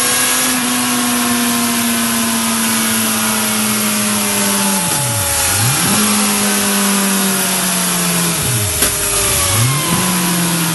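Suzuki GSX 1250 FA's inline-four engine running at high revs on a roller dyno, breathing through a Mivv Speed Edge aftermarket exhaust. The engine note holds high and sags slowly, then drops sharply and climbs straight back twice, about five and nine seconds in.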